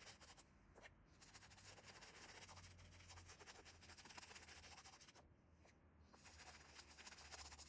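Faint scrubbing of a toothbrush's bristles working a foamy baking soda and dish soap paste into a white sneaker, with a couple of short breaks.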